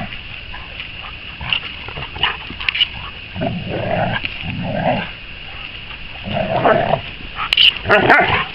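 Dogs growling in play as a collie puppy and a retriever wrestle, in several separate bursts.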